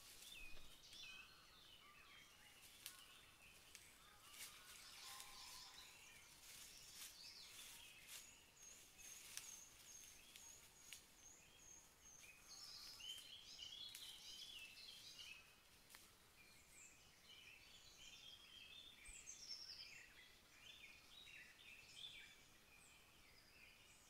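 Faint woodland birdsong of short high chirps and trills, with a thin high trill held for a few seconds about a third of the way in. Quiet crackles and snaps of dry leaf litter come through mostly in the first half, as a badger roots through it.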